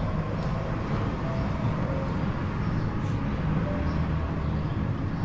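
Outdoor city-street ambience: a steady low rumble of distant traffic.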